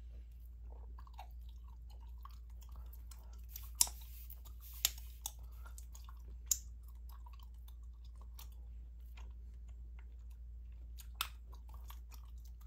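Close-miked gum chewing: a run of small wet mouth clicks and smacks, with a few sharper, louder snaps.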